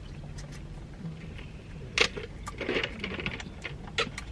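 Food packaging and sauce containers being handled: light rustling, with a sharp click about two seconds in and another near the end.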